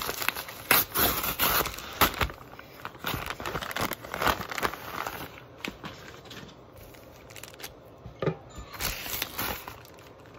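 Paper and plastic shipping mailers being opened and unpacked by hand: crinkling and rustling packaging, almost continuous for the first five seconds, then in scattered bursts.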